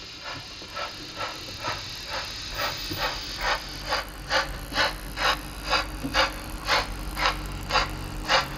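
Märklin/Trix HO Bavarian S3/6 model steam locomotive's built-in sound playing steam-engine chuffs through its speaker, about two a second, growing louder about halfway through, over a low steady hum.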